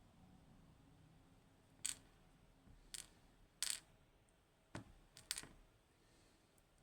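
Small sharp metallic clicks, five or six spaced irregularly, as the pins and springs of a pin tumbler lock are taken out during disassembly.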